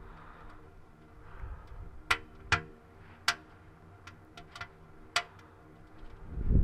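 Irregular sharp clicks and pops over a low steady hum, four of them louder, about two, two and a half, three and a third, and five seconds in. Wind noise swells in just before the end.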